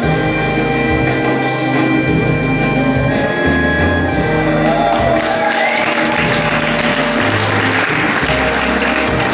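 Show music with a stepping bass line and held notes; about halfway through, an audience starts applauding over it.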